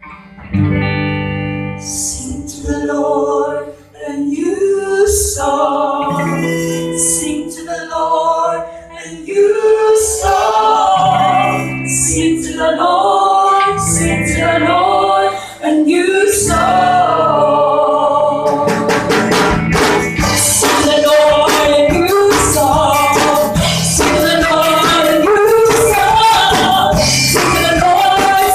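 A live vocal group of male and female singers singing a song into microphones over acoustic guitar. About two-thirds of the way through, the accompaniment gets fuller, with a steady beat.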